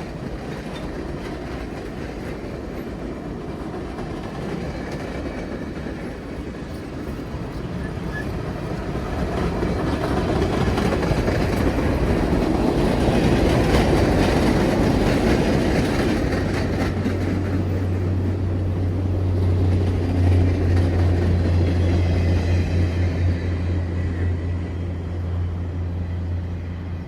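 A passenger excursion train passing on the rails, its rumble building to its loudest about halfway through and easing off. A steady low hum comes in during the second half.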